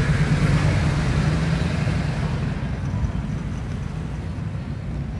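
A vehicle engine running with a steady low hum under general street noise. The higher street sounds dim during the second half.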